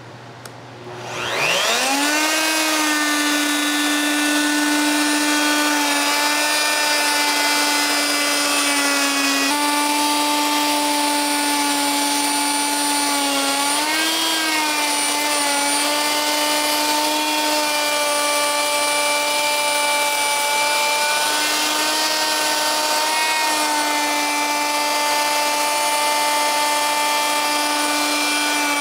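Electric router on a slab-flattening jig spinning up about a second in, then running loud and steady with a high whine while it surfaces a rough walnut slab. Its pitch wavers briefly near the middle as the bit takes load.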